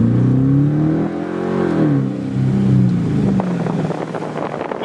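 Dodge Charger R/T's 5.7-litre Hemi V8 under acceleration: the engine's pitch climbs for about a second and a half, then falls away over the next two seconds as the revs drop, settling into a low steady hum with road noise.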